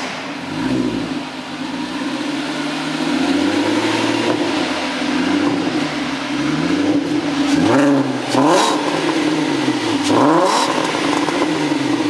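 Volkswagen Bora V6 engine breathing through an R32 rear muffler, revved up and dropping back again and again, with sharper quick blips about eight and ten seconds in.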